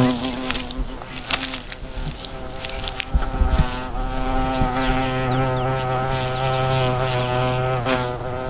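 A bee buzzing: a steady, droning hum that holds an even pitch.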